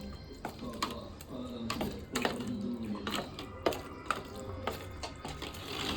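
Kitchen handling sounds while marinated chicken is mixed in a bowl: irregular clicks, taps and knocks of a bowl and utensils, several a second.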